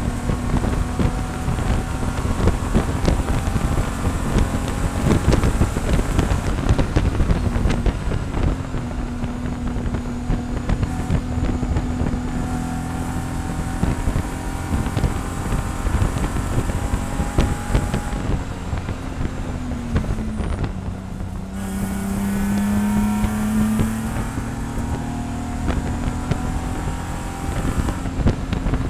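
In-cabin sound of a BMW E46 race car's straight-six engine running hard at racing speed, mixed with wind and road noise. About two-thirds through, the engine note dips briefly, then comes back lower and climbs again.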